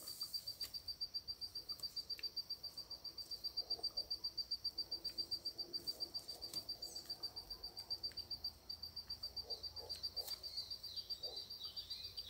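A cricket trilling steadily in fast, regular high pulses, about eight a second, with a short break about eight and a half seconds in. Near the end a bird calls briefly with a few short wavering notes.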